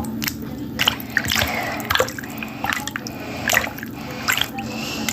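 Water dripping steadily into standing water, one plinking drop about every two-thirds of a second, over a steady low hum.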